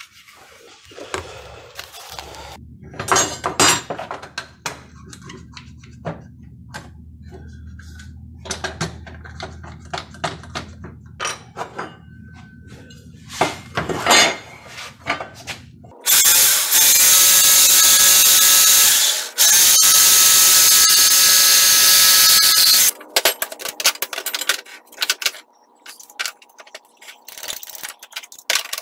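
Corded jigsaw cross-cutting a 2x4 against a speed square. It cuts loud and steady for about seven seconds past the middle, with a brief stop partway through. Before and after the cut come scattered clicks and knocks of the board, square and tools being handled.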